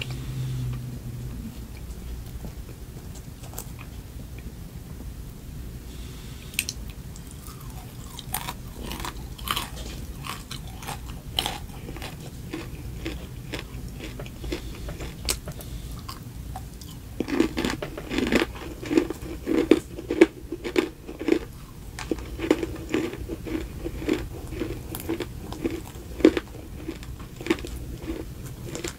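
Close-up ASMR chewing and biting of a cupcake topped with crunchy cereal pieces and candy. Sparse crisp crackles come first, then steady rhythmic crunching from about halfway through.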